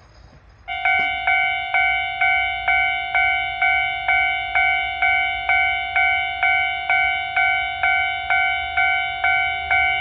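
Railway level crossing warning bell that starts about a second in and rings steadily, about two strikes a second, signalling an approaching train.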